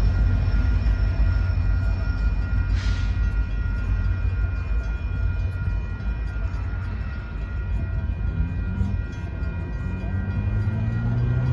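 Grade-crossing warning bell ringing steadily over the low rumble of a train. There is a brief hiss about three seconds in, and near the end, as the gates lift, a rising engine tone.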